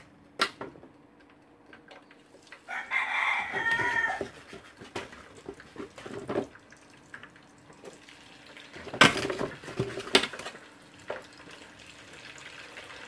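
A rooster crows once, a single call of about a second and a half, starting about three seconds in. A slotted metal ladle clinks and scrapes against an aluminium steamer pan, loudest around nine and ten seconds in.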